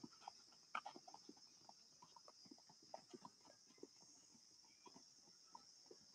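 Faint, irregular footfalls of children running and hopping over mini hurdles on grass, a few soft taps a second, over a steady high hiss.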